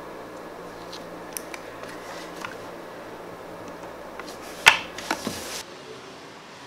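Faint handling noises over steady room hiss: a few small clicks and sticky touches as fingers work a lump of hardened, sticky homemade slime, then one sharp tap about two-thirds through, with a couple of lighter taps after it, as hands set against the small plastic slime pots.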